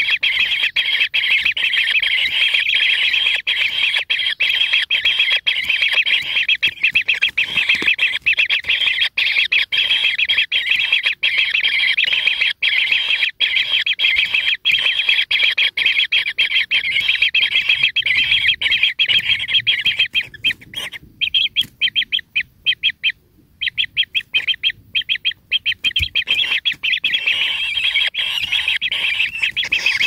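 Kingfisher nestlings in their burrow making a steady, dense stream of high begging calls. About 21 s in the calling breaks off for a couple of seconds, then comes back in quick, broken spurts.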